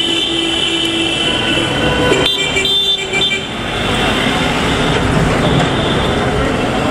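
Vehicle horns sounding in street traffic: one steady horn held for about two seconds, a second shorter horn around three seconds in, then the rumble and hiss of passing traffic.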